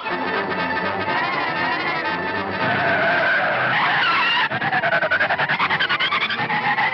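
Cartoon chase sound effects: a loud, noisy screech with a wavering whine, turning about halfway through into a fast pattering of about seven beats a second.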